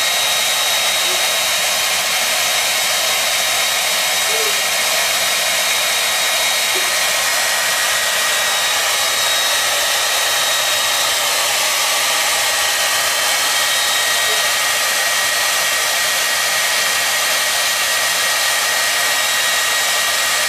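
Handheld hair dryer blowing steadily: a loud, even rush of air with a thin, high, steady whine from its fan motor.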